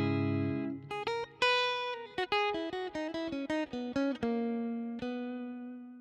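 Background music on guitar: a held chord, then a run of plucked notes ending on a single note that rings out and fades.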